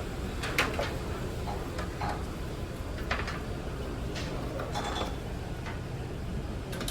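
Dishes and cutlery clinking now and then in a buffet dining room, over a steady low hum.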